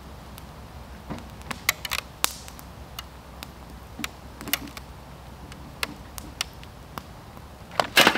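Irregular sharp cracks and pops, a dozen or so scattered over several seconds, with a louder burst of them near the end.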